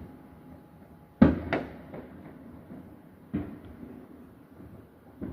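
Neighborhood fireworks exploding, heard from indoors: a loud bang about a second in, a second close behind it, and a weaker one a little past three seconds, each with a short echoing tail.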